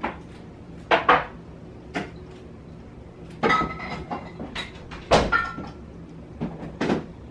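Wooden kitchen cabinet and the things inside it knocking and clinking as someone rummages in an upper cupboard and takes out a jar. There is a string of short, sharp knocks, two of which ring briefly like glass or a jar being set down or bumped.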